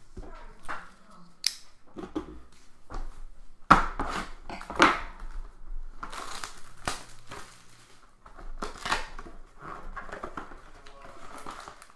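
Cardboard trading-card hobby box being opened by gloved hands, with irregular rustling, scraping and crinkling as the box flaps open and the sealed card packs inside are handled.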